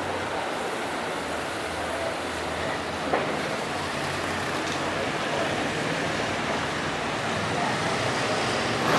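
Steady city street ambience: a low, even rumble of traffic, with one sharp click about three seconds in.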